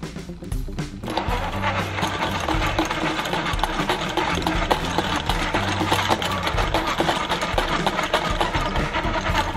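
Battery-powered motor and plastic gears of a Choken-Bako dog coin bank, whirring and clattering steadily as the toy dog dips its head into its bowl to eat a coin. The mechanism starts about a second in and keeps running.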